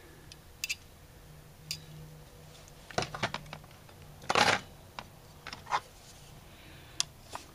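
Light clicks and scrapes of small carburetor parts and hand tools being handled on a workbench during disassembly of an Autolite 4100 carburetor, with a louder rubbing sound about four and a half seconds in.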